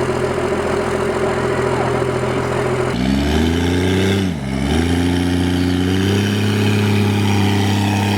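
First-generation Cummins 5.9-litre inline-six diesel running steadily, then revving up about three seconds in. It drops briefly as the throttle comes off, then pulls again and holds at higher revs.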